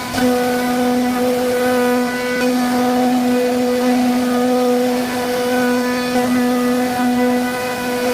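CNC wood router carving a wooden door panel: the spindle runs at a constant speed with a steady pitched whine and overtones, over a hiss of cutting, with a brief dip right at the start.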